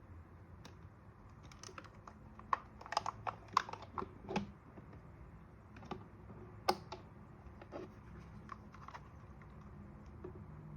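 Keys of a Ziyoulang K68 wireless mechanical keyboard clicking at an irregular pace: a quick run of keystrokes, then a few scattered ones.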